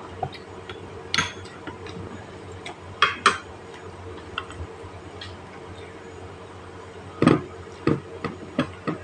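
Scattered clinks and knocks of a spoon and hands against plates and the tabletop during a meal, a dozen or so short sharp clicks. The loudest come about three seconds in and again about seven seconds in, over a faint steady hum.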